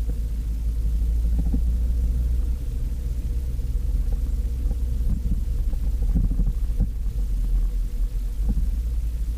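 1970 Alfa Romeo GT 1300 Junior on the move, heard from inside the cabin: a steady low rumble of its twin-cam four-cylinder engine and road noise, with a faint steady hum and a few light knocks.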